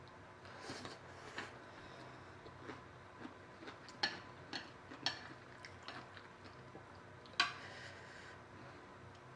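Chopsticks clicking and scraping against a plate while picking up fried noodles: a scattering of light, irregular clicks, the sharpest about four, five and seven and a half seconds in.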